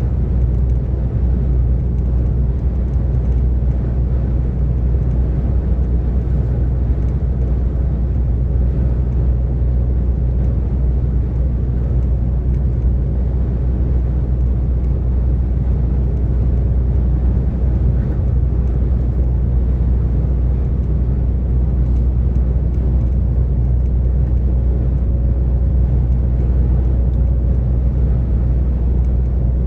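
DAF XF 460 truck's diesel engine and drivetrain holding a steady low drone while cruising at a constant speed on the motorway, with road noise.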